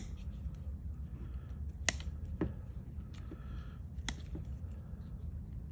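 Heavy orange-handled snips cutting through the wires of a golf cart onboard computer's 6-pin connector plug: three sharp snaps, two close together near two seconds in and a third about four seconds in.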